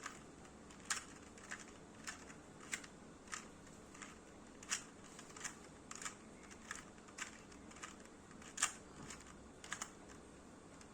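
A 2x2 Rubik's Cube being turned by hand through an algorithm: a series of light plastic clicks, roughly one or two a second, unevenly spaced, as the layers snap round.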